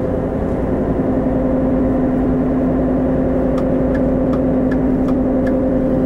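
A 2013 Ford F-150's 3.5-litre twin-turbo EcoBoost V6 cruising at highway speed, heard from inside the cab: a steady drone of engine and road noise with no stumble. It is running smoothly with no misfires on new spark plugs and coil boots.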